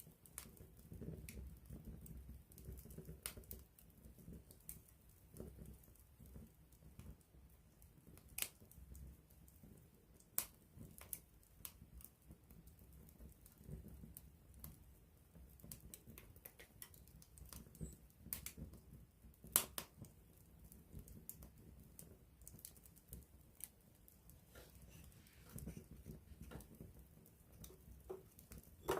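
Wood campfire crackling, with irregular sharp pops over a soft low rumble of flame. The loudest pop comes about two-thirds of the way through.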